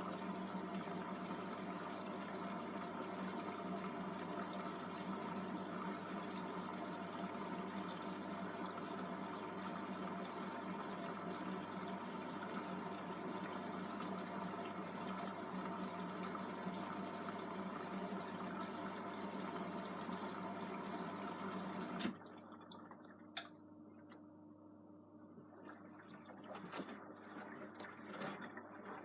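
Beko WM74165W washing machine taking in water through its inlet valve at the start of a wash, a steady hiss that cuts off suddenly about 22 seconds in as the valve closes. After that it is quieter, with a few faint clicks.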